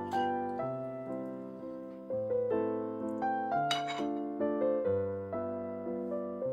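Gentle background piano music: chords of struck notes, each fading before the next.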